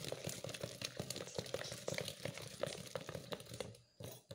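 Wire whisk beating boondi batter in a steel bowl: quick, irregular wet slaps and clicks of the wires against the bowl, stopping shortly before the end.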